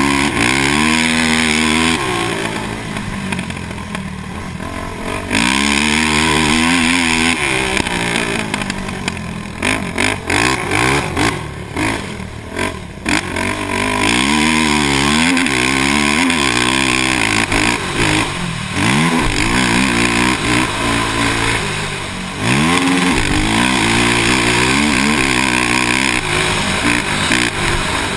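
2006 Honda TRX450R quad's single-cylinder four-stroke engine revving under throttle, its pitch climbing and falling again and again as the rider accelerates, shifts and backs off around a dirt track.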